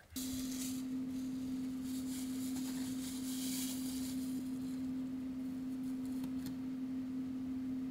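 An HVAC air handler's blower fan, switched on abruptly, running with a steady low hum over a rush of air through the ductwork.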